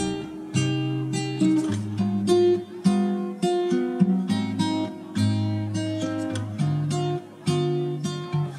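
Background music: acoustic guitar plucking and strumming a slow melody.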